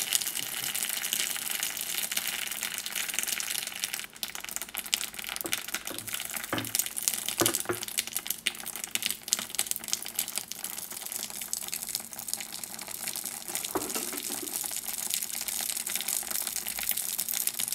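Silica gel desiccant beads soaked with water, crackling and fizzing with many tiny pops, like popcorn. The beads are taking up water and giving off heat as they do, which makes the glass hot.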